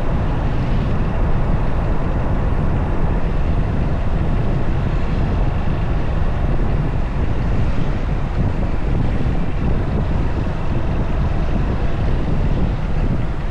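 Riding sound from a moving motorcycle: wind buffeting the camera microphone over the engine and road noise, a steady low rumble.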